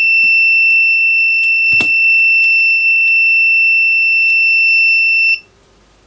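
One long continuous electronic beep, a steady high tone held for about five seconds that cuts off sharply near the end, with a light click about two seconds in.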